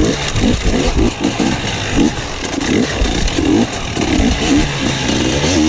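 Enduro motorcycle engine ridden hard, its revs rising and falling about every half second as the throttle is worked over logs and bumps, heard close up from on the bike.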